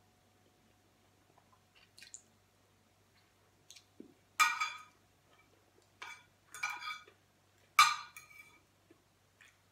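Metal fork clinking and scraping on a plate in a few short, sharp strokes, the loudest about four and a half seconds in and again near eight seconds.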